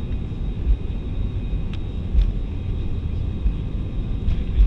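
Airbus A320 cabin noise while taxiing: a steady low rumble from the airliner rolling on the ground, with a faint high engine whine. A few light clicks or rattles are heard.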